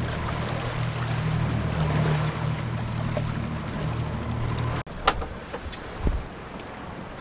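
A 30 hp outboard motor running steadily as the boat trolls, with water rushing along the hull. About five seconds in it cuts to quieter wind and water noise with a couple of sharp knocks.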